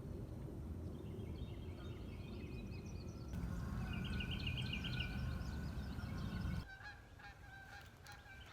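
Geese honking repeatedly, the calls thickest in the middle, over a low rumble that cuts off abruptly near the end.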